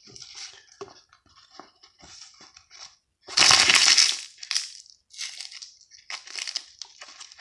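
A sheet of paper-backed mother-of-pearl (nacre fabric) being crumpled and wrung in the hands, giving off irregular crackling and crunching, with one much louder burst about halfway through.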